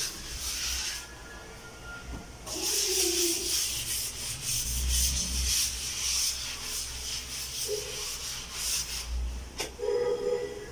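Cloth and scouring pad scrubbing back and forth over a kitchen countertop: a rubbing hiss, with a quieter pause about a second in before it picks up again.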